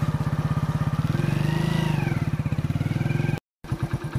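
Motorcycle engine running at low speed with an even firing beat, picking up revs about a second in and easing off again. The sound drops out for an instant near the end.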